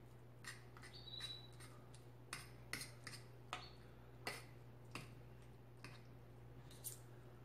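Light, irregular clicks and scrapes of a metal fork against a ceramic plate as cooked fish fillet is flaked apart, with a brief high squeak about a second in.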